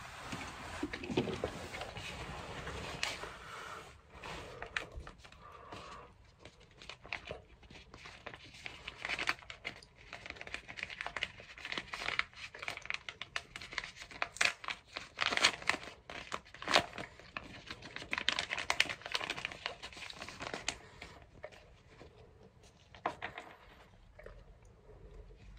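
A sealed plastic amenity packet being handled, torn open and crumpled, with irregular rustling and sharp crackles.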